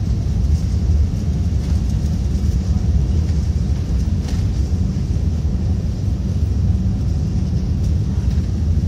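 Inside a jet airliner's cabin during the takeoff roll: a loud, steady low rumble of the engines at takeoff power and the wheels running down the runway.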